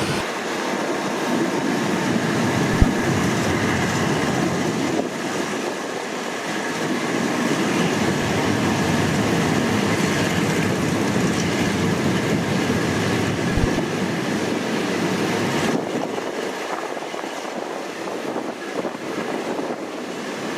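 Passenger train running along the track: a steady rumble and clatter of wheels on rails, with a sharp knock about three seconds in and another around thirteen seconds.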